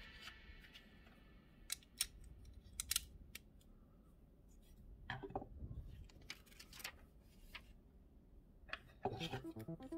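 Sparse light clicks and taps of plastic Lego pieces being handled and pressed together. Synth music comes back in near the end.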